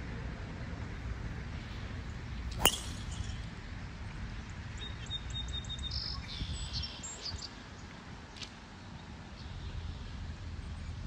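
A golf driver striking a ball off the tee: one sharp crack about two and a half seconds in.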